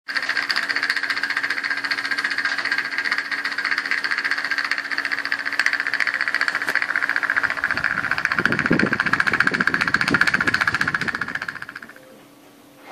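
Fan making a strange, rapid rattling buzz over a steady motor hum. A low rumble joins for a few seconds, and the rattle fades out near the end, leaving only a faint hum.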